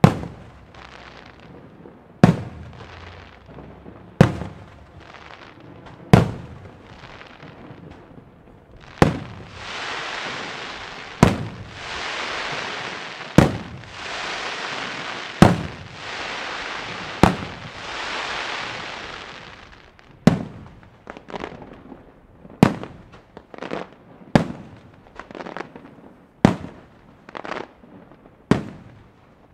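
Aerial firework shells bursting with a sharp bang about every two seconds. For about ten seconds in the middle a dense hiss fills the gaps between bangs. In the last third the bangs come faster and smaller, roughly two a second.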